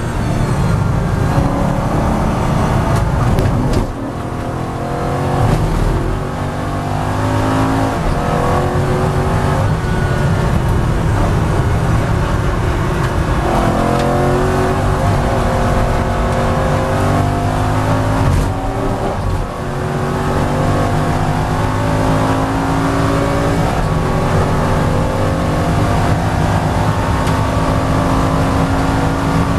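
The 4.3-litre V8 of an Aston Martin V8 Vantage N24 race car, heard from inside the cockpit, pulling hard through the gears. The engine note climbs in pitch between shifts, with brief lifts of the throttle about four seconds in and again near twenty seconds.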